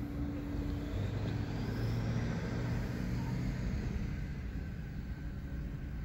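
Car interior road noise while driving: a steady low rumble of engine and tyres. A steady hum drops to a lower hum about a second in, and that lower hum fades after a few seconds.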